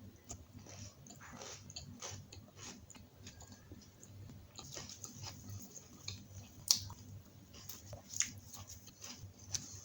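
A person chewing and biting food, with soft wet mouth clicks throughout and a few sharper crisp bites, the loudest about seven seconds in, others near eight seconds and just before the end.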